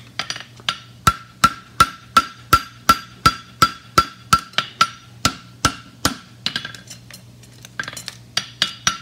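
Hand forging hammer striking a red-hot steel horseshoe bar on an anvil: steady blows about three a second, each with a short ring from the anvil. This is the farrier flattening the shoe's stock back to its normal section size. A short lull comes about seven seconds in, followed by quicker, lighter blows.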